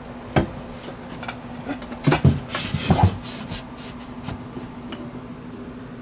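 Wooden knocks and clatter of a plywood board being handled and fitted into a cabinet opening: a sharp knock about half a second in, then a cluster of knocks around two seconds in and more near three seconds. Under them runs a steady air-conditioner hum.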